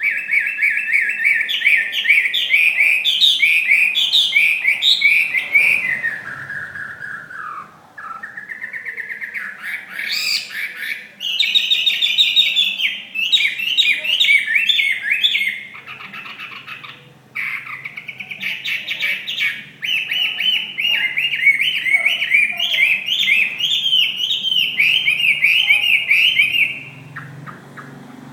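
Chinese hwamei singing a long, loud song of rapid, varied whistled phrases, broken by short pauses about a third of the way and just past halfway, and stopping shortly before the end.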